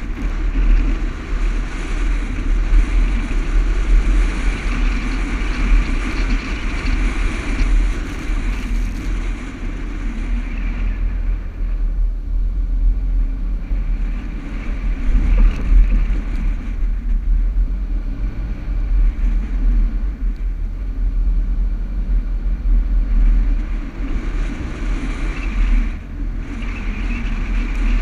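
Toyota Land Cruiser driving over soft sand dunes: the engine runs under load with a steady low rumble and wind noise. The sound is louder at the start and again near the end.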